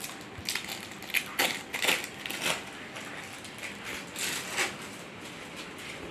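Packaging of cheese slices crinkling and crackling in irregular bursts as it is opened and handled.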